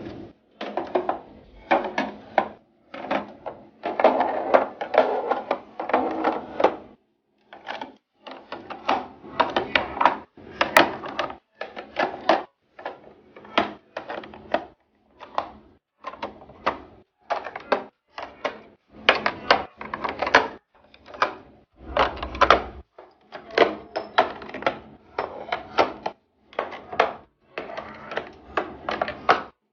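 Items and containers being handled and set down while a fridge is restocked: quick runs of clicks and clatters in short bursts, broken by brief moments of silence.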